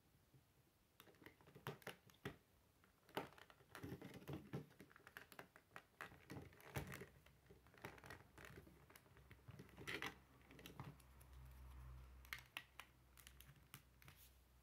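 Plastic Lego bricks and plates clicking and clattering as they are handled and pressed together, a scatter of small sharp clicks, some in quick runs.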